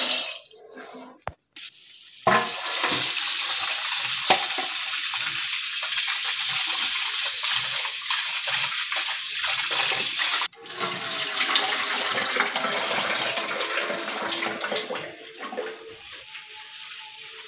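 Tap water running steadily into a steel bowl of rice in a stainless-steel sink while the rice is rinsed and swished by hand. The water starts about two seconds in and eases off near the end.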